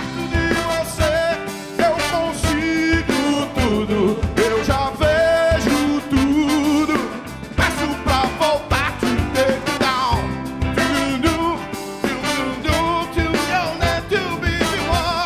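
Live band playing a song: a male lead singer with vibrato over electric guitars, drum kit, keyboard and a horn section of trombone, trumpet and saxophone.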